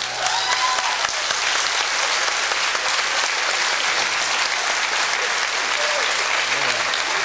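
Studio audience applauding, a steady even clapping that follows a sung performance.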